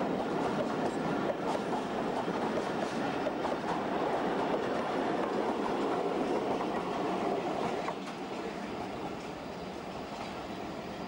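Karachi Express passenger coaches rolling past close by, their wheels running over the rails. The sound drops about eight seconds in as the last coach passes and the train moves away.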